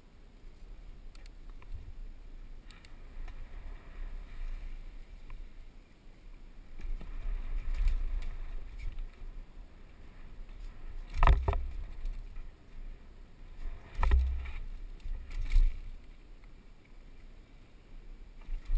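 Downhill mountain bike riding over grass and rock, picked up by a helmet-mounted camera: low rumble of tyres and air with rattling, and three sharp knocks, about eleven, fourteen and fifteen and a half seconds in, as the wheels strike rock.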